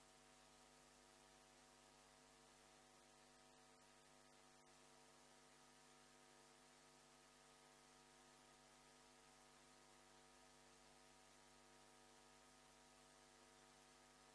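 Near silence: a faint, steady electrical hum with background hiss.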